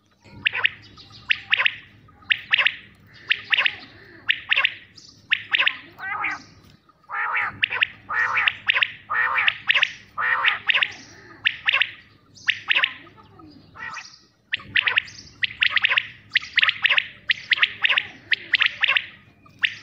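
Common quail calling: repeated phrases of two or three quick, sharp notes, about one phrase a second, with a couple of short breaks. About seven to eleven seconds in, the calls come fuller and lower.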